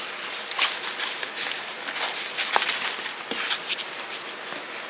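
Packaging rustling and crinkling with many small crisp clicks as items are rummaged out of a bag by hand.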